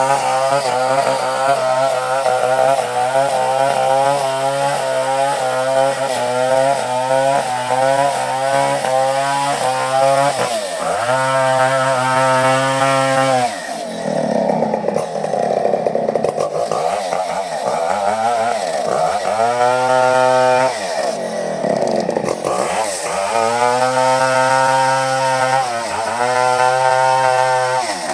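Two-stroke chainsaw cutting coconut wood at high revs, its pitch wavering for the first ten seconds. After that the engine note drops and climbs back up several times as the throttle is eased off and opened again.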